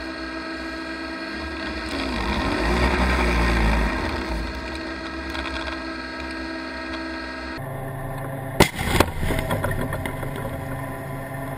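Tank engine running steadily, heard muffled from the turret, swelling for a couple of seconds with a brief wavering whine. About nine seconds in comes a sudden sharp blast with a second crack just after it, the tank firing its main gun and throwing up dust.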